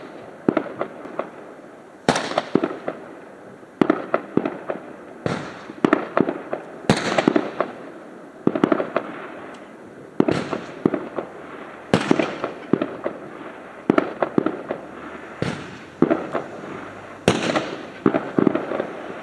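Fireworks going off in a steady sequence, a sharp bang about every one and a half to two seconds, each followed by a rattle of smaller pops.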